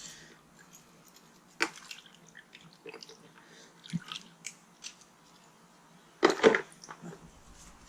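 Scattered small metallic clicks and scrapes of a cleaned bicycle multi-tool being handled, its folding parts worked back and forth, with the loudest cluster of clicks about six seconds in.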